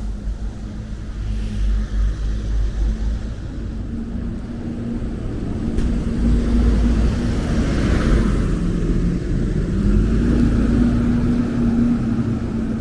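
An engine running steadily with a deep rumble, swelling louder about halfway through and shifting slightly in pitch.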